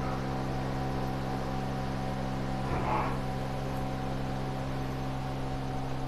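Steady mechanical hum of a running motor or machine, holding several fixed pitches without change, with a brief faint sound about three seconds in.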